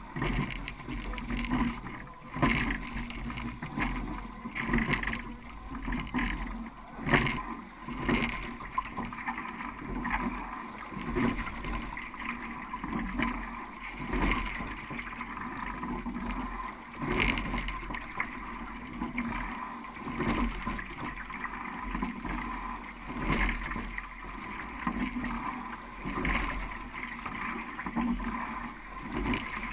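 A sculling boat under way, heard from a camera mounted on the hull: water washing along the boat, with a louder swoosh and knock of the oars and sliding seat at each stroke about every three seconds. Wind rumble on the microphone.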